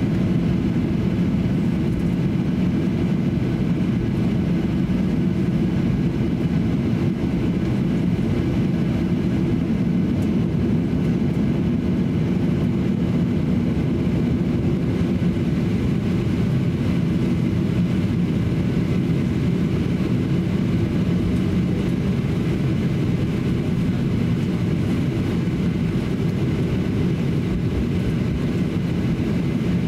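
Cabin noise inside a Boeing 737-800 as it taxis, its CFM56-7B engines at low taxi thrust: a steady low rumble that holds even throughout.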